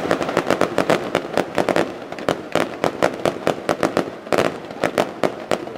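Aerial fireworks display going off in a rapid barrage of sharp bangs and crackles, several a second, with a brief lull a little after four seconds in.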